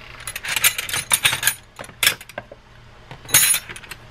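Metal hand tools clinking and clattering in several short bouts as someone rummages through a tray of wrenches and sockets for a 12 mm wrench.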